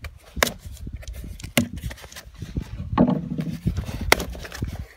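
Knife blade slitting the packing tape on a small cardboard box, then the cardboard flaps being pried open, with scraping and three sharp clicks.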